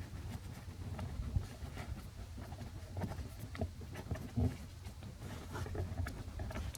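Faint scattered clicks and light taps of hand work on a plastic blend door actuator under a truck dash, over a low hum, with one louder knock about four and a half seconds in. This is the handling that goes with driving the actuator's mounting screws.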